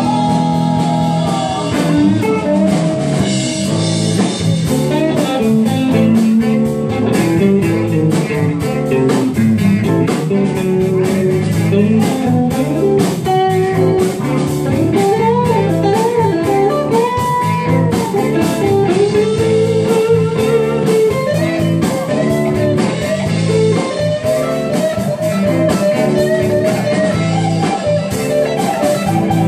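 A live blues-rock band plays an instrumental passage with electric guitars, bass guitar and drum kit, recorded on a phone. A lead line slides and bends up and down in pitch over the band.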